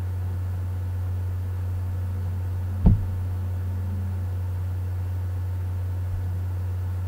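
Steady low hum from the recording, with a single knock a little under halfway through.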